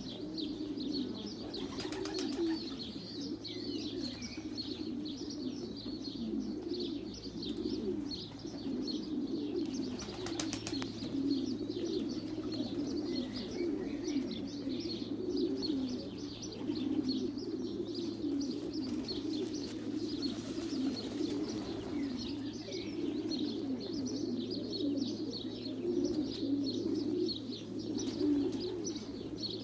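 Pigeons cooing steadily, several voices overlapping, with small birds chirping continuously at a higher pitch.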